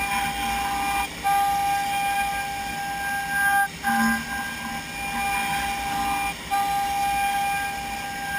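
Format4 CNC machining centre's milling spindle whining steadily as it mills wood in 3D. The tone breaks off briefly about every two and a half to three seconds.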